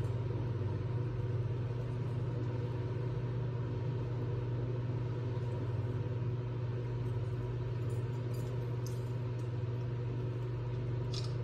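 Steady low mechanical hum, unchanging throughout, with a couple of faint high ticks late on.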